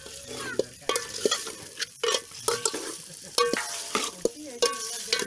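Steel spoon stirring chicken pieces frying in oil in a metal pot, scraping and knocking against the pot again and again so that it rings briefly after each knock, over a steady sizzle.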